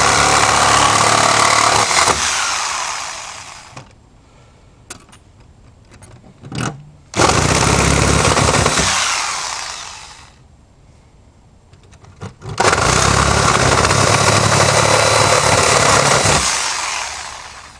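Reciprocating saw cutting through the thin sheet-steel wall of a small floor safe in three runs of a few seconds each, each dying away over a second or so when it stops.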